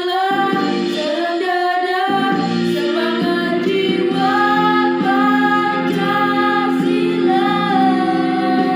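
Two women singing a song together in long held notes, over steady sustained accompaniment.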